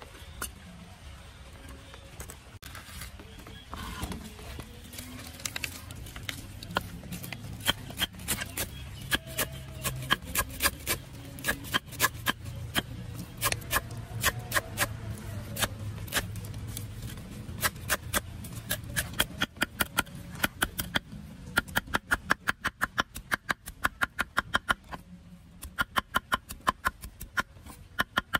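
A knife chopping green leaves on a cutting board: a run of sharp chops, sparse at first, turning into a fast regular chopping of about four a second in the last third.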